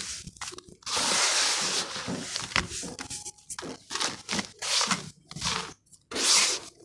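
Hands crumbling and squeezing a gritty charcoal-and-sand mixture: crunchy, sandy rustling with many small clicks, and a longer rush of falling grit about a second in and again near the end.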